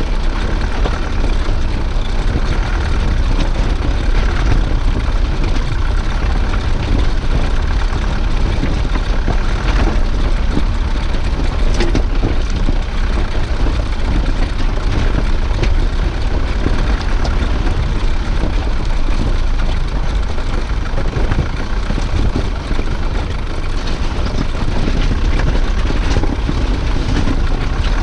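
Wind buffeting a small action-camera microphone: a loud, steady rumble with a fine crackle, and no engine note standing out.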